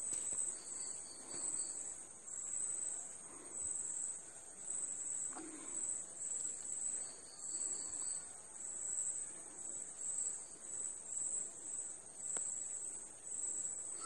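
Steel spoon stirring and scraping thick onion masala around a chatti, a soft rhythmic swish about once a second, as the masala is sautéed until the oil separates. A cricket chirps steadily in the background.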